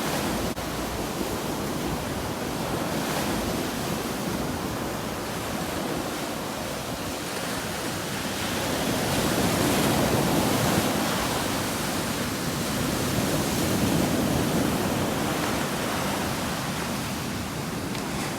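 Ocean surf washing onto a sandy beach, a steady rush of waves that swells louder twice in the middle.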